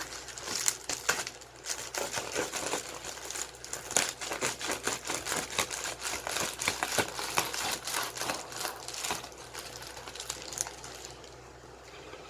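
Packaging being handled and opened: dense crinkling and rustling with many sharp clicks and crackles, thinning out near the end.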